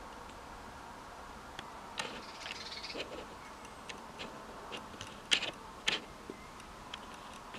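Steady faint hiss with a few scattered sharp clicks, the two loudest about five and six seconds in.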